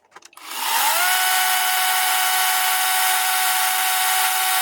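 Battery chainsaw with an electric motor: after a few faint clicks, the motor spins up with a rising whine over about half a second, then runs at a steady high speed.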